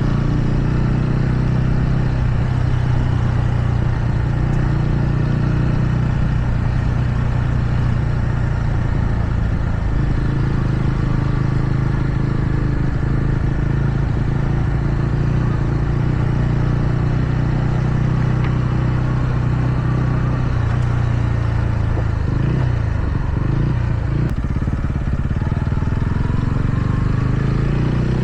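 TVS Ronin's single-cylinder engine running steadily under way, its note wavering briefly about three quarters of the way through as the throttle changes.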